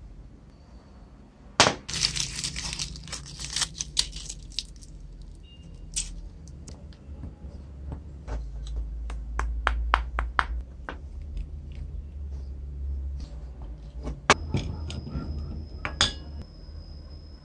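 Small metal parts of an old Boston pencil sharpener's crank being handled and set down: a run of sharp clicks and clinks, with louder knocks about a second and a half in and near the end.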